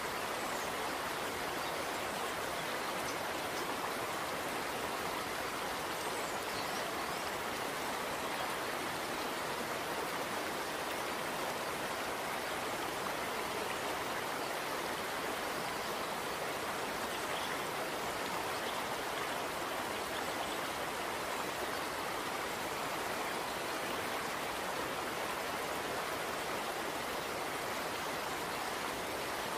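Steady, even rushing noise like running water.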